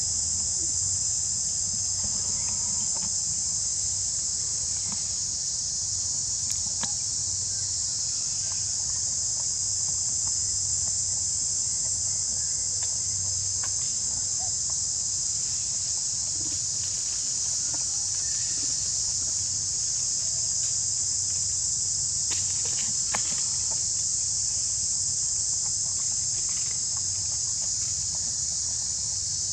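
Insect chorus giving one continuous high-pitched drone that never breaks. A few faint clicks sound here and there.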